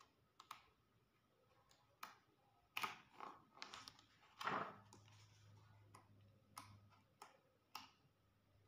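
Pages of a thick comic-book collection being turned by hand: faint, scattered paper flicks and swishes, a few slightly louder ones about three and four and a half seconds in.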